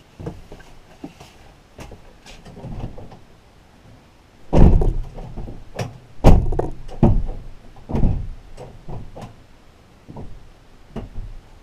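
Thuds and knocks inside a bare cargo van as a person gets up and moves about in it, with a run of loud heavy bumps about four and a half to eight seconds in.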